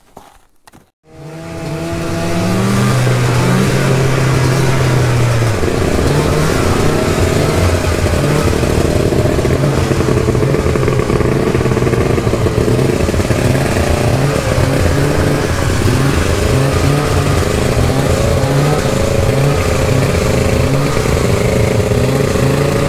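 Snowmobile engines running at riding speed over a broad hiss, the pitch wavering up and down with the throttle. The sound comes in loud about a second in.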